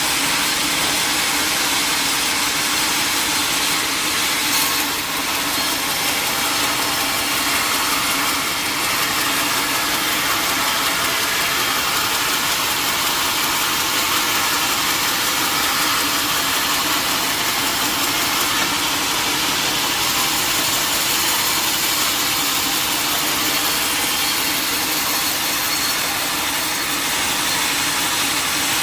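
Sawmill saw running steadily, a constant, even mechanical noise with no break.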